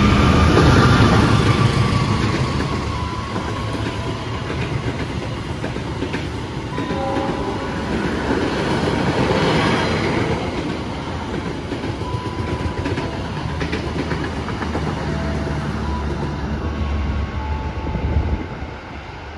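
A train passing through the station, its wheels clattering over the rail joints; near the end the sound drops off suddenly as the train clears.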